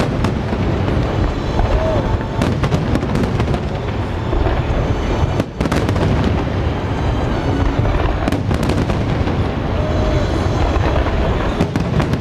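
Aerial firework shells bursting overhead in rapid succession: a continuous barrage of booms and crackles, with a brief lull about five and a half seconds in.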